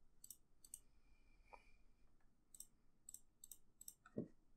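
Faint computer mouse button clicks, each a quick press-and-release pair. There are two near the start and four more close together in the last two seconds.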